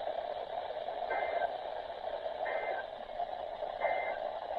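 Weather radio hiss with three short two-pitched data bursts about 1.4 s apart: the SAME end-of-message code that closes an Emergency Alert System broadcast.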